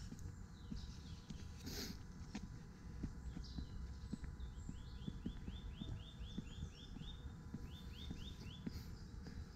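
Footsteps thudding faintly and regularly while walking. Through the second half a small songbird sings a run of quick, repeated downward-sliding notes, about five a second, pausing briefly and then adding a few more.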